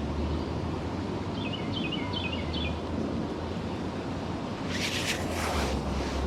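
Steady wind and water noise outdoors, with a low rumble of wind on the microphone. A bird gives a short series of high, falling chirps about a second and a half in, and a brief burst of noise comes about five seconds in.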